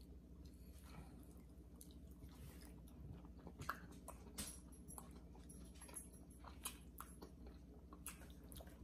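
Faint chewing of baked chicken, with small clicks and mouth sounds scattered throughout.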